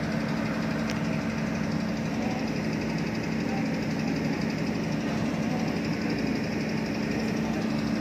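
Heavy diesel engine running steadily at an even low pitch, from a Sumitomo asphalt paver being moved onto a low-loader truck's ramp.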